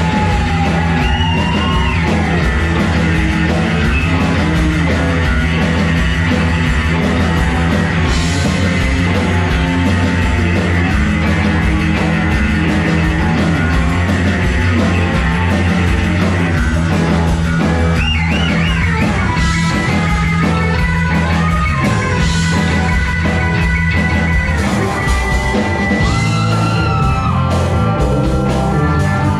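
Live rock band playing loudly on electric guitars, bass guitar, keyboard and drums, with sliding lead lines over a steady bass.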